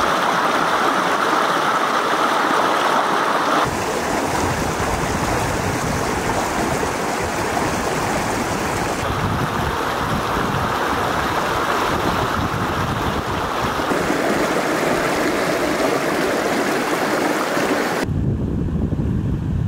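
River water rushing and splashing over boulders in a shallow rocky riffle, a steady rush that shifts in tone at each change of shot. Near the end a low wind rumble on the microphone takes over from most of the water's hiss.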